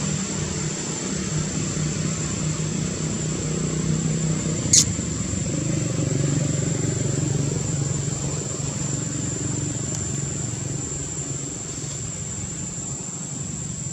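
A motor engine running steadily, with a constant high-pitched whine over it and one sharp click about five seconds in.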